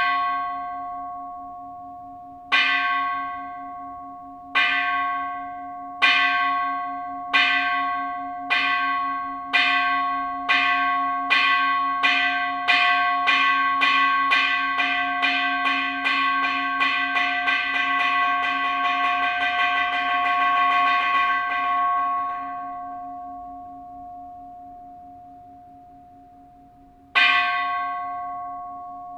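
A Buddhist temple bell struck again and again, slowly at first and then ever faster until the strikes run together into a rapid roll, which stops and rings away. A single strike follows near the end. Each strike rings long on the same few steady tones.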